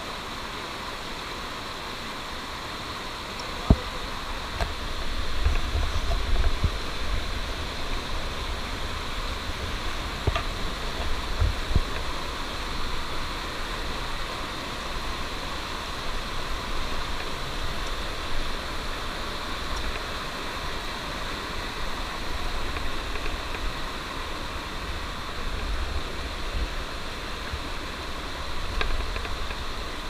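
Water of a small rocky forest stream cascade rushing over boulders, a steady hiss. A single sharp knock comes a little under four seconds in, and from then on an uneven low rumble runs beneath the water.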